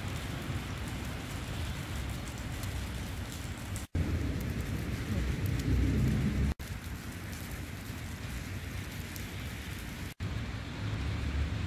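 Outdoor ambience in a heavy snowfall: a steady hiss like light rain over a low, uneven rumble of wind on the microphone. The sound cuts out for an instant about four, six and a half and ten seconds in, where clips are joined.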